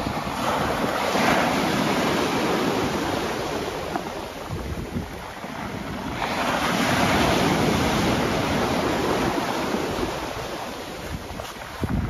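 Waves breaking and washing up a beach of large rounded pebbles, the surf swelling twice, about a second in and again around six to nine seconds, with wind buffeting the microphone. A short knock sounds near the end.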